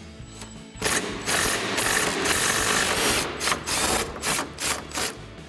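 Cordless power tool with socket and extension backing out a truck bumper's upper mounting bolt. It starts about a second in with a steady two-second run, then a string of short stop-start bursts as the bolt comes free.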